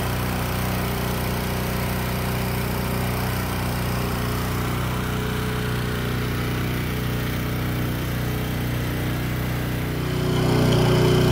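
Small gasoline engine of a pressure washer running at a steady pitch, a little louder about ten seconds in.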